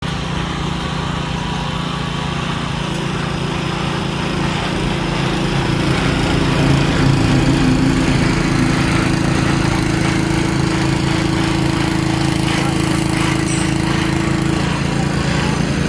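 Small engine of a core drilling rig running steadily under load, with a higher steady tone joining about three seconds in and dropping out near the end; it grows a little louder a few seconds in.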